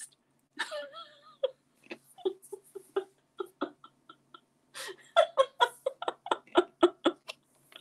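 A woman laughing: short, separate giggles, then a quicker, louder run of laughter about five seconds in.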